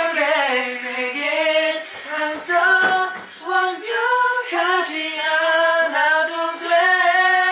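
Young men singing a pop melody together without accompaniment, in long held notes that waver slightly in pitch.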